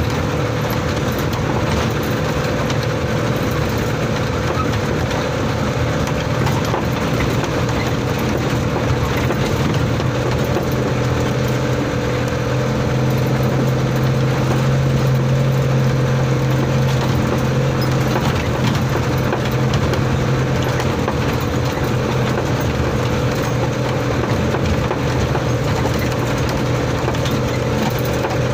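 Old truck's engine running steadily under way, heard from inside the cab. It grows a little louder for a few seconds about halfway through.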